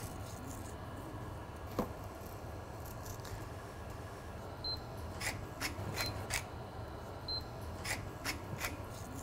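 Wooden pepper mill twisted over steaks, giving a run of short crisp grinding clicks in the second half, over a low steady hum.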